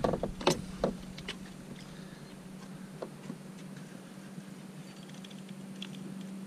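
A few clicks and knocks in the first second, from a spinning rod and reel being worked as a fish is brought to the boat, over a steady low hum.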